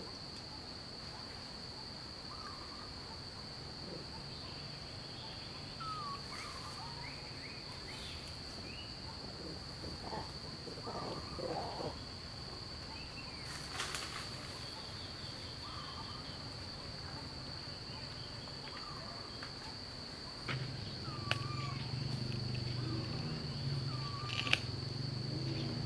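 Steady high-pitched insect drone, with short hooked chirping calls repeating every few seconds. A low hum joins about twenty seconds in, along with a few sharp clicks.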